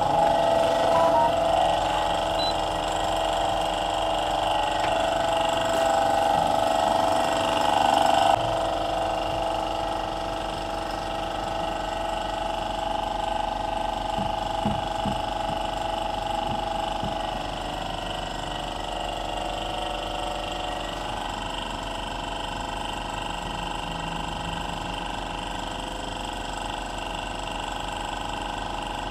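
Steady mechanical hum with a constant whine, louder for the first eight seconds, then dropping suddenly to a quieter steady drone.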